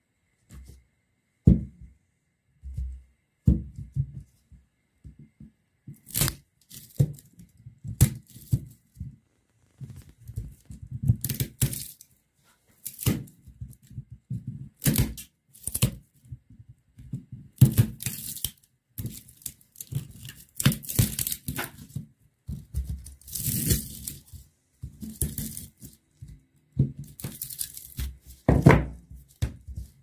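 Burnt copper winding being pulled and torn out of a refrigerator fan motor, in irregular scraping, tearing rasps with sharp knocks in between.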